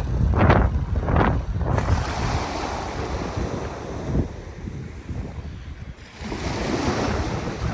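Ocean waves washing onto the shore, with two sharp splashes about a second in, a quieter lull past the middle, then another wave washing in near the end. Wind buffets the microphone throughout, adding a low rumble.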